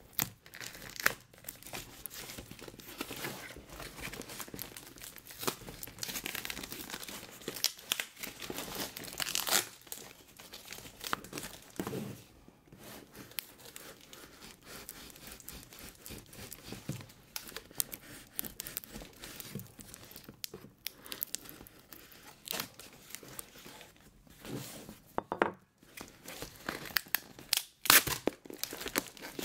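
Printed packing tape being peeled and torn off a cardboard shipping box: irregular tearing and crinkling, with a few louder sharp snaps as it comes free.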